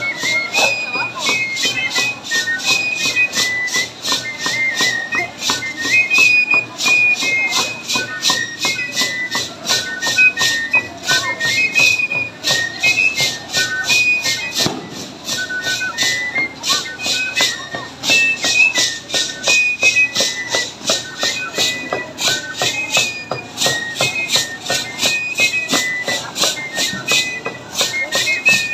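Traditional dance music: a high-pitched pipe playing a short repeating stepped melody over a fast, even drumbeat.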